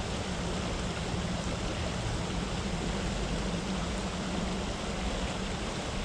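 River water flowing steadily around a wading angler: an even, unbroken rush of current.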